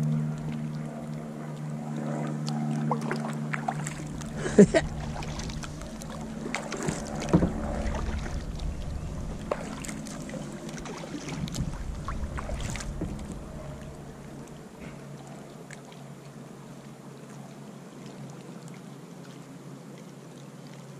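Kayak paddling: water splashing and dripping from the paddle, with a few sharp knocks of the paddle, the loudest a few seconds in. A low steady hum sounds during the first several seconds and then fades away.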